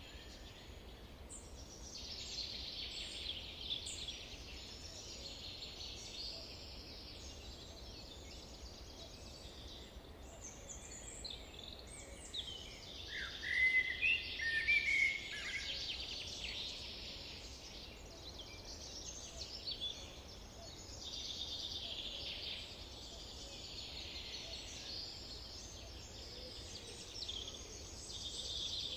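Dense chorus of many songbirds singing over a faint steady low rumble. Around the middle one nearer bird calls more loudly with a short run of down-slurred notes.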